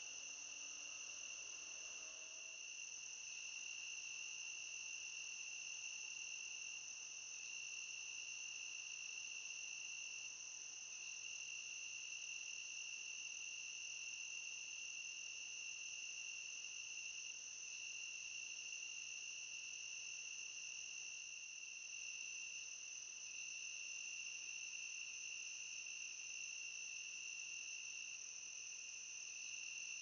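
Crickets trilling steadily in a continuous, high-pitched night chorus with no breaks.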